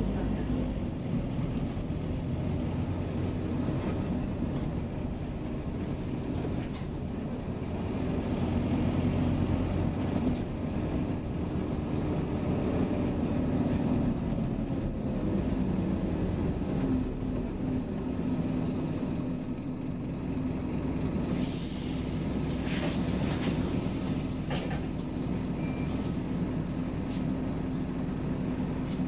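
Scania OmniCity bus engine running with a steady low drone, getting louder for a few seconds near the middle. A few short air hisses come about two-thirds of the way through, typical of the bus's air brakes.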